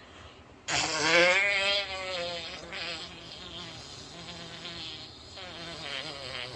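A person making a drawn-out buzzing noise with the voice, wavering in pitch. It starts abruptly under a second in, is loudest at first, then goes on fainter and lower until it stops near the end.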